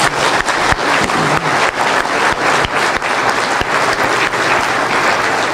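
Congregation applauding: many people clapping at once, in a dense, steady wash of claps.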